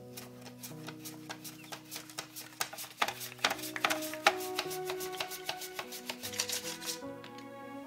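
A peeled raw potato is pushed back and forth over a handheld mandoline slicer's blade in quick repeated rasping strokes, several a second, each cutting a thin slice. Background music plays throughout.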